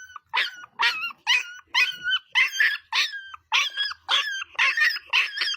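Dog giving short, high-pitched yips over and over, about two a second.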